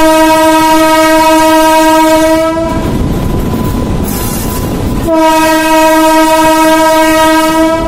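Train horn sounding two long, steady blasts of about three seconds each, the second starting about five seconds in, with the train's running rumble between them.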